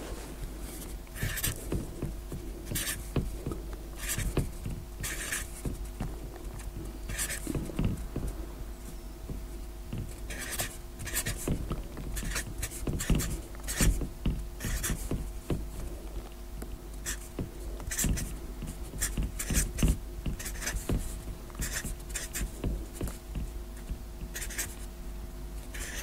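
Marker pen writing digits on a board: a run of short, irregular squeaks and taps of the tip, several a second, as each number is drawn. A faint steady hum lies underneath.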